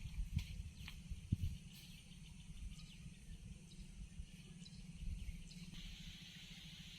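Outdoor ambience: a steady low rumble with a few short knocks, and faint high calls over it. About six seconds in, a steady high-pitched hiss sets in.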